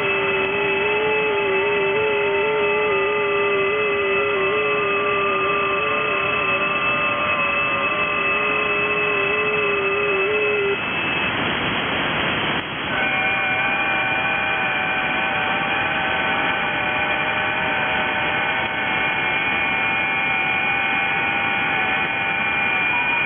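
FT8 digital-mode signals on the 30 m amateur band heard through the receiver audio of an Icom IC-7100 transceiver: several overlapping steady tones at different pitches, each stepping slightly in pitch, over receiver hiss. About eleven seconds in, the tones all stop together and only hiss is left. About two seconds later a new set of tones begins, which marks the start of the next 15-second FT8 receive cycle.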